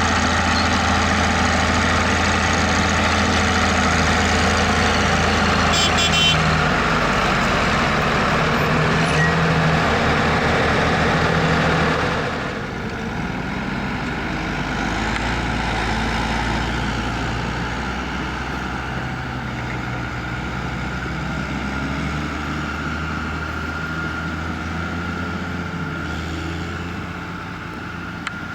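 Mercedes-Benz MB-Trac tractor's diesel engine running steadily. The sound drops suddenly about twelve seconds in and carries on more quietly.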